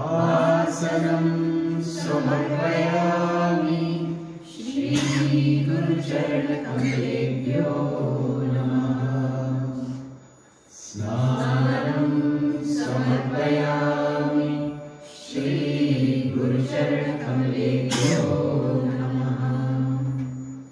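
Sanskrit mantras chanted on a fairly level pitch, in four long phrases of about four to five seconds each, with short breaks for breath between them.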